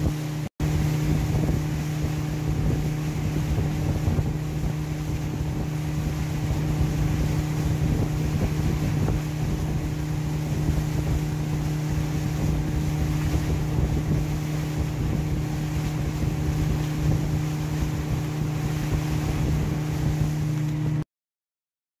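Outboard motor on a fishing boat running at a steady speed, with wind buffeting the microphone; it cuts off suddenly near the end.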